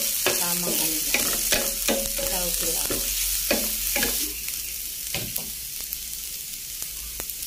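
Sliced red onion and ginger sizzling in hot oil in a nonstick frying pan, stirred with a wooden spatula that scrapes and knocks against the pan. The stirring stops about four seconds in, and the sizzle carries on a little quieter.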